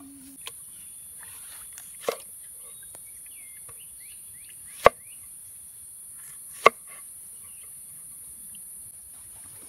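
Cleaver chopping through a dragon fruit onto a wooden cutting board: three sharp knocks a couple of seconds apart, the last two the loudest, over a steady high hiss.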